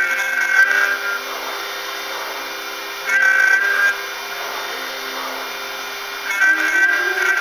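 A 5-axis CNC milling machine cutting cherry wood: a steady machine noise, with a high, many-toned cutting whine that swells three times for about a second each, and lower motor tones that shift in pitch as the axes move.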